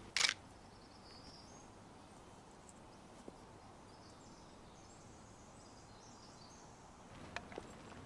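Faint outdoor ambience with faint, distant bird calls, after a short sharp click right at the start and with a couple of small ticks near the end.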